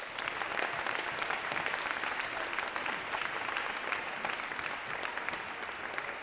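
Crowd applauding steadily in a gymnasium, dense overlapping hand claps.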